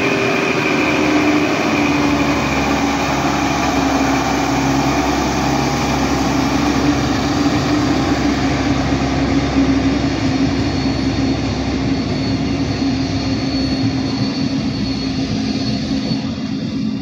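Class 628 diesel multiple unit pulling away from the station, its diesel engine running under load with a steady drone over the rumble of the wheels. The sound fades a little near the end as the train draws off.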